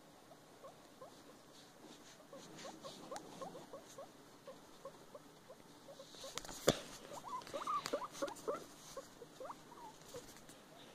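Guinea pig making many short, soft, rising squeaks while it eats shredded vegetables, with small clicks of chewing and rummaging. The squeaks grow busier and louder in the second half, with one sharp click about seven seconds in.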